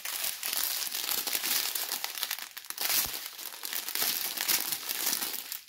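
Small plastic zip bags of diamond-painting drills crinkling as they are handled and shuffled through by hand, in an irregular stream of crackles that stops just before the end.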